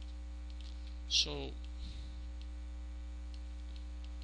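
Steady low electrical mains hum on the recording, with faint scattered clicks from a computer mouse and its scroll wheel being worked. One short spoken word about a second in.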